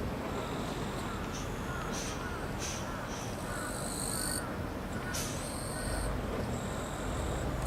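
Crows cawing repeatedly over a steady low outdoor rumble, with a few short high-pitched calls mixed in.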